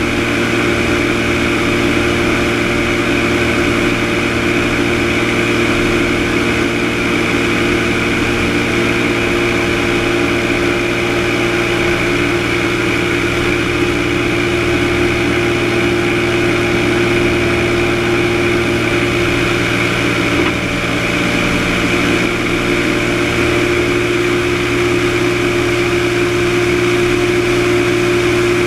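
Single-engine light aircraft's piston engine and propeller running steadily in flight, a continuous drone with steady tones, mixed with wind rushing past a wing-mounted camera. The sound dips slightly for a moment about two-thirds of the way through.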